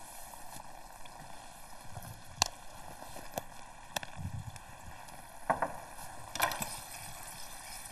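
Quiet kitchen background with a steady low hum and a few faint light clicks and knocks, about three of them near the middle.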